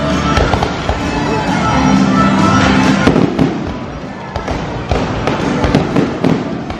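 Fireworks display going off: a rapid, irregular string of sharp pops and bangs, with music playing underneath.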